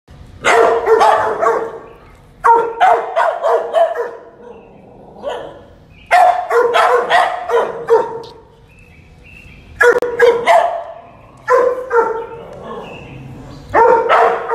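Dog barking in quick volleys of several barks each, about seven volleys with short pauses between them.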